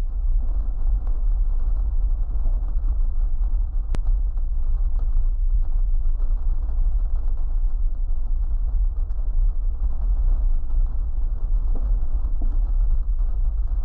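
Steady deep rumble of a powder avalanche pouring down a snow-covered mountain face.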